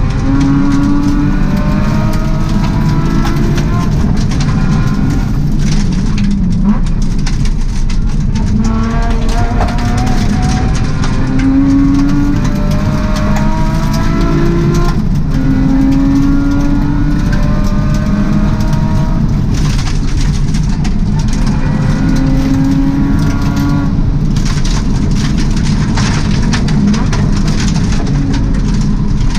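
Subaru rally car's flat-four engine at full stage pace, heard from inside the cabin. It revs up again and again and falls away at each shift or lift, over constant road noise from the gravel with scattered sharp clicks.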